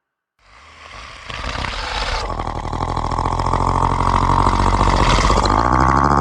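Horror ringtone sound effect: after a brief silence it swells in over about two seconds to a loud, steady drone, a deep hum under a buzzing middle tone.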